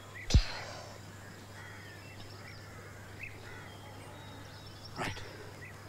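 Open-air ambience with birds chirping faintly. A single sharp thump about a third of a second in, and a softer knock near the end.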